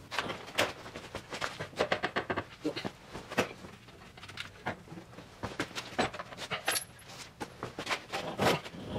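Irregular metallic clinks, knocks and rattles as a Mazda 5 manual transmission, held on a transmission jack, is pushed and shifted into alignment with the engine, with a louder flurry of knocks near the end.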